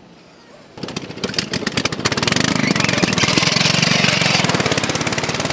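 Racing ride-on lawn mower's small petrol engine running hard close by, with a fast, even firing rhythm. It comes in about a second in, grows louder for a couple of seconds, then eases a little near the end.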